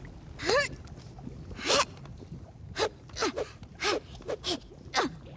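A cartoon squirrel character's voice giving about seven short effort cries, each quick and falling in pitch, as she leaps from rock to rock.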